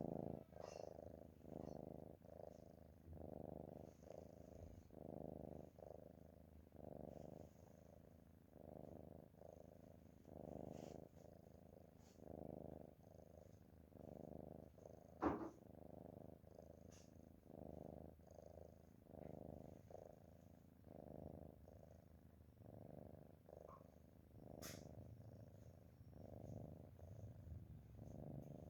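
A cat snoring softly in its sleep, a faint purring rasp on each breath, about one a second. One sharp click about halfway through stands out above it.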